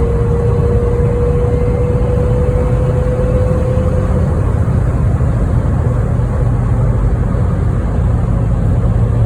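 In-cabin sound of a VW Vanagon Syncro cruising at highway speed: a steady low drone from the just-rebuilt transmission, which has a straight-cut fourth gear, along with the engine and the road. Over it a clear whine climbs slightly and fades out about four seconds in.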